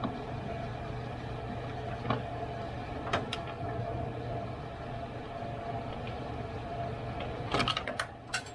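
Scattered plastic clicks and knocks as parts are pushed and worked into place around a car radiator in the engine bay, with a quick cluster of clatter near the end, over a steady background hum.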